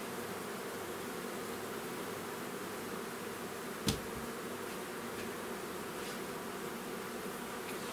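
Honeybees buzzing steadily in a dense hum, with a single sharp click about four seconds in.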